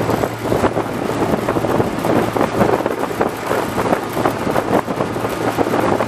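Small fishing boat running under way: a steady low engine hum beneath wind buffeting the microphone and water rushing past the hull.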